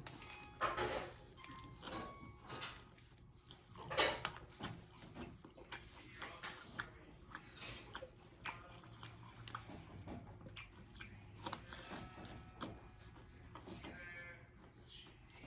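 A person chewing and biting into a loaded BLT sandwich close to the microphone, with irregular mouth clicks and smacking.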